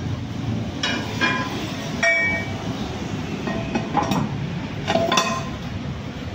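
Steel pressing sleeve being set down and shifted on a steel wheel rim: a handful of sharp metallic clinks and clanks, each ringing briefly, over a steady low rumble.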